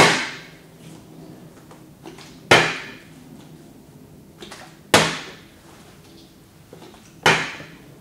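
Partly filled plastic water bottle flipped and landing on a glass-topped table: four sharp hits about two and a half seconds apart, each ringing briefly.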